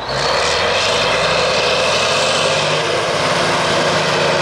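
Heavy truck engine droning steadily at close range, with tyre noise on the snowy road. It starts suddenly at the cut and then holds at an even level.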